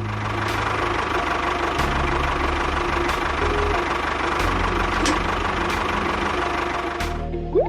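A small motor running steadily, stopping about seven seconds in.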